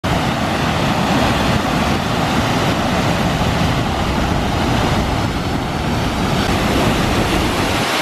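Loud, steady rush of a raging waterfall in high flow, whitewater pouring over a rock ledge and boulders with a deep rumble underneath.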